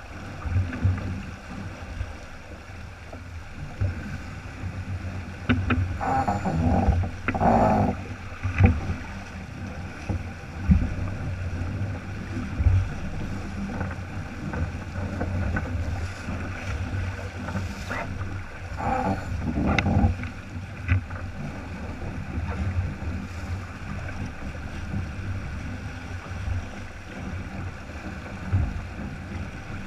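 Wind buffeting a small action-camera microphone over water rushing along the hull of a sailboat under sail, a steady low rumble and hiss. A few brief louder sounds come through a few seconds in and again about two-thirds of the way through.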